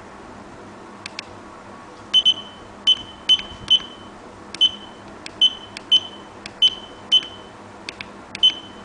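Buzzer of a homemade Arduino digital alarm clock giving short, high beeps, about a dozen at irregular intervals, with faint clicks in between.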